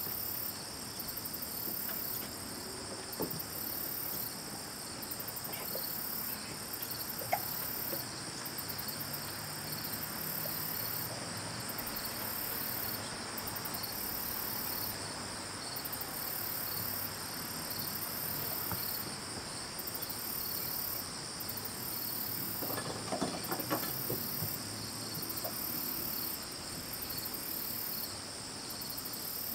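Chorus of insects trilling steadily at several high pitches. The highest trill stops and starts every second or two.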